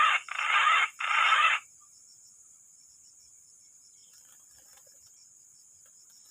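Three loud, harsh chicken calls in the first second and a half, then a faint, steady high-pitched insect drone.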